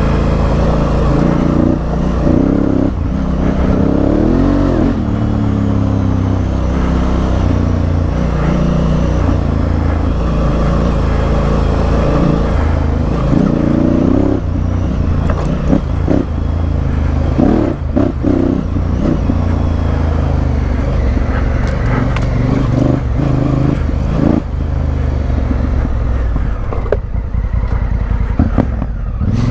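Honda CRF1000L Africa Twin's parallel-twin engine and exhaust under way off-road, revving up and down with the throttle. There are a few knocks and clatters about halfway through.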